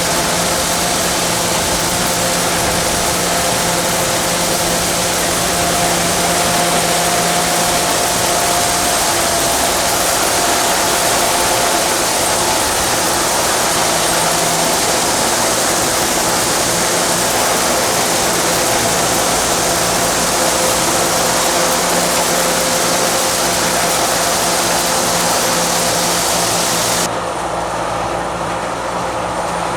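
Sakpattana KM-D 4.1 corn combine harvester running steadily, a loud even engine and machinery noise with a low hum and several steady whines under a strong hiss. Near the end the high hiss drops away abruptly.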